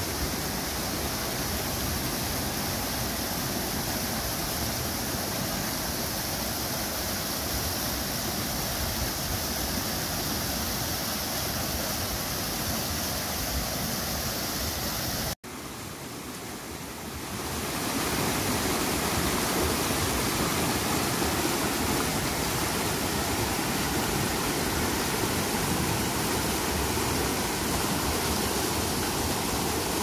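Clear mountain stream rushing over rocks in small rapids, a steady sound of moving water. About halfway through it cuts off and comes back quieter for a couple of seconds, then fuller and louder.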